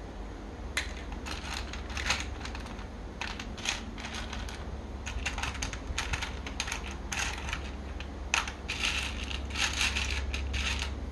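Small hard plastic construction-toy parts clicking and clattering as they are handled, in irregular runs of sharp clicks that grow denser near the end, over a steady low hum.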